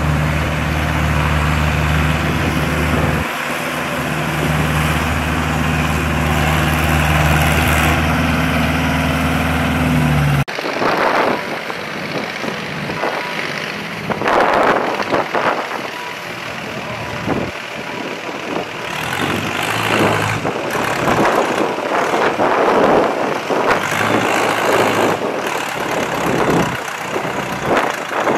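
Vintage diesel tractor engines labouring through deep mud. For about the first ten seconds one engine runs loud and steady close by; then the sound changes suddenly to a rougher, uneven mix of tractor engines working in the mud.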